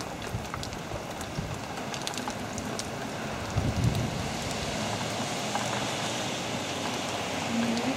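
Steady rain falling, with scattered drops tapping close by. A brief low rumble of wind on the microphone comes about four seconds in.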